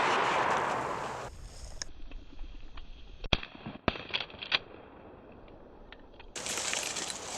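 The echo of a shotgun shot rolling away and fading over about a second. Then a quiet, thin-sounding stretch with a few sharp clicks.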